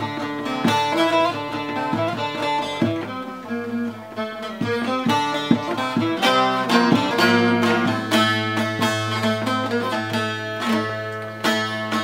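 Bağlama (long-necked Turkish saz) played solo with a plectrum: the instrumental introduction to a türkü, a picked melody of quick notes, with a steady low note sounding underneath from about halfway through.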